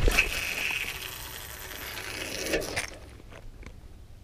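Fishing rod swished in a cast, then line whirring off a spinning reel's spool for nearly three seconds as the sinker flies out, ending in a few sharp clicks.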